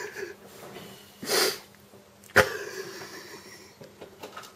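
A person gives one sharp, breathy sniff, and about a second later there is a single sharp click with a short fading tail.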